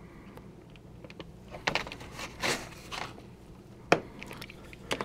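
A hobby knife cutting the thin plastic webbing between HO scale flex track ties: a few small clicks and scrapes, with a sharp snap near the end as the plastic gives way.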